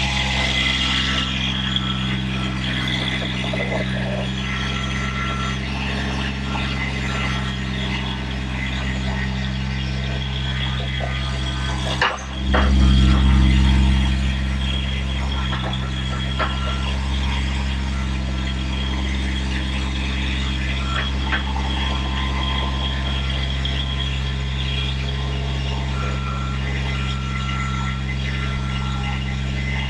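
Tractor engine running steadily at a constant speed. About twelve seconds in it dips for a moment, then runs louder for a couple of seconds before settling back.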